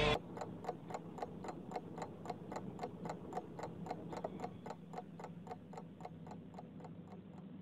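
Faint, even ticking, about four ticks a second, fading out near the end.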